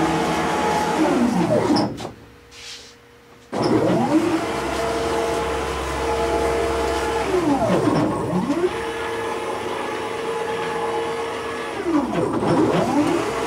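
High-torque 1600 oz-in stepper motors driving a CNC router's axes through a warm-up cycle. Their whine rises in pitch as each move speeds up, holds steady through the rapid traverses, and falls as the machine slows to change direction. There is a short quieter pause about two seconds in.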